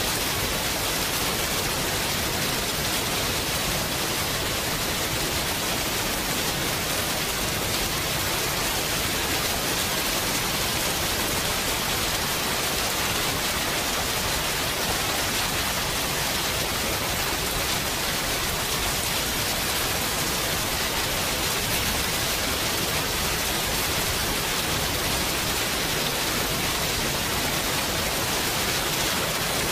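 Steady rain falling, an even constant hiss with no single drops or gusts standing out.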